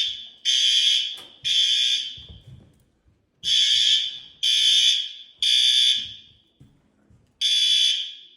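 Building fire alarm sounding in the temporal-three evacuation pattern: three half-second blasts a second apart, a pause of about a second and a half, then again. The alarm is being tested during the inspection of the newly installed system.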